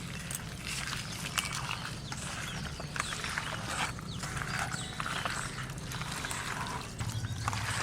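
Hands mixing raw duck meat with ground spice paste and mustard oil: irregular wet squishing and slapping strokes.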